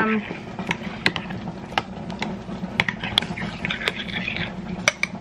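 A metal spoon stirring a thick, creamy mixture in a glass bowl, clinking and scraping against the glass in irregular clicks, over a steady low hum.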